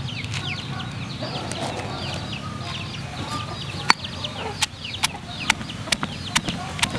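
Stone pestle pounding in a stone mortar: sharp knocks about two a second, starting about four seconds in, the first the loudest. Over it, chickens keep up many short, high, falling chirps.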